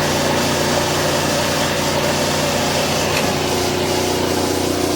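Metal lathe running steadily, its motor and gearing giving an even hum over a hiss.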